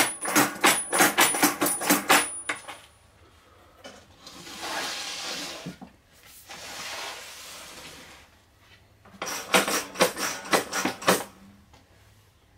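Aluminium flipper linkage of a home-built mechanical pinball machine clacking as the flippers are worked by hand: a burst of rapid metal clacks at about four a second, then a softer rustling scrape, then a second burst of clacks near the end.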